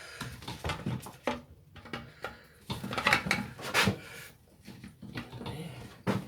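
Irregular clicks, taps and light knocks of small strimmer parts being handled and fitted by hand during reassembly of the fuel system.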